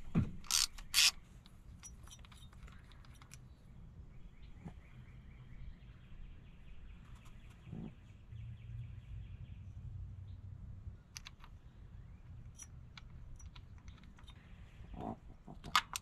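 Scattered sharp clicks and taps from hand tools and parts being handled under a car's hood, the loudest pair about a second in and a few more near the end, over faint background noise.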